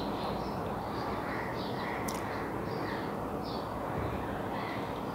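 A spoon stirring and mashing thick boiled taro leaves in an aluminium pot, with one faint clink about two seconds in, over a steady background hiss. Faint short high calls sound now and then in the background.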